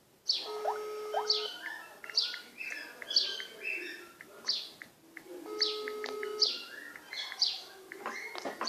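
A bird chirping over and over in short falling chirps, with a telephone ringback tone sounding twice, each a steady one-second tone about five seconds apart, as an outgoing call rings unanswered.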